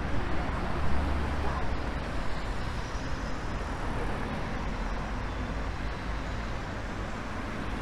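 Street traffic at a busy intersection: cars and vans driving past close by, a steady hum of engines and tyres, with a louder low engine rumble from a passing vehicle about a second in.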